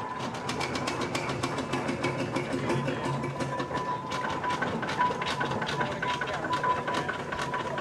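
Steam traction engine running along the road, its motion giving a quick, even beat of sharp clanks and chuffs.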